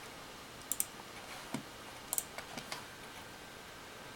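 Scattered light clicks from working a computer, several coming in quick pairs, with gaps of quiet between them.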